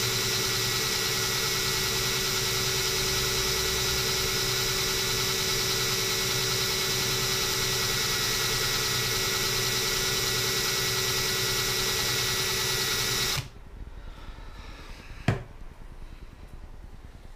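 Green Bosch cordless drill running steadily with a constant whine as it bores a hole through the glass of an empty rum bottle, stopping suddenly about thirteen seconds in. A single sharp knock follows a couple of seconds later.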